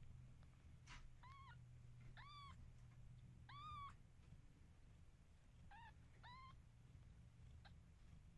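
Newborn Ragdoll kittens mewing as they jostle for a nipple while nursing: about five short, faint mews, each rising then falling in pitch, with a couple of soft clicks between them.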